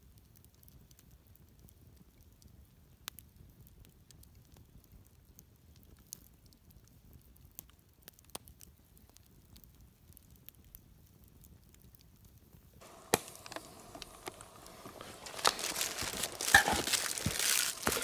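Wood campfire crackling faintly, with scattered sharp pops. About 13 seconds in, louder rustling, crinkling and knocking of things being handled takes over.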